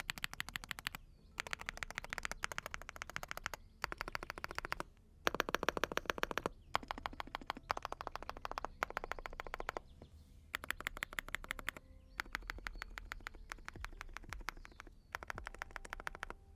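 Fast typing on a full-aluminium mechanical keyboard with Monstargear 'Halloween' tactile switches and PBT keycaps, keys bottoming out. The keystrokes come in quick runs of about a second each, with brief pauses between them.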